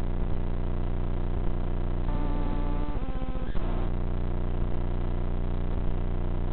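Steady buzzing drone of an FPV quadcopter in flight, heard through its low-quality recorded audio feed, with a brief change in tone and a pulsing flutter about two to three and a half seconds in.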